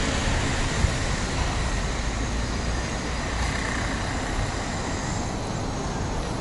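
Street traffic noise: a steady wash of car and engine sound with a heavy low rumble, and a single short bump just under a second in.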